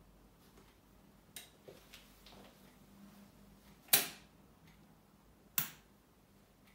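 Turntable tonearm and stylus being handled: a few light clicks, then a loud pop about four seconds in and a second sharp pop about a second and a half later.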